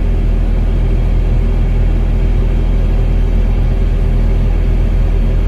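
Excavator engine running steadily, a low rumble with a constant hum.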